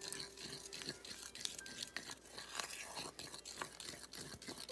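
Spoon stirring chocolate icing in a ceramic bowl as the dry cocoa mix is worked into a wet paste, with quick, irregular gritty scrapes and clicks against the bowl.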